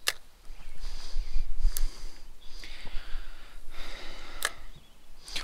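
Spinning rod and reel handled during a cast of a light jig: three sharp clicks from the reel spread across a few seconds, over breathy hissing close to the microphone.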